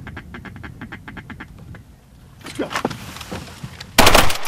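Rapid duck quacking, about seven quacks a second, then a few louder quacks. A loud shotgun blast cuts in near the end.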